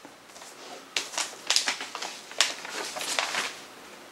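Vinyl record sleeve being handled: a run of short, crisp rustles and scrapes of paper and plastic from about a second in until near the end, then quieter.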